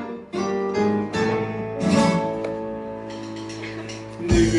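Acoustic guitar playing accompaniment, a series of plucked and strummed chords whose notes ring on between strokes.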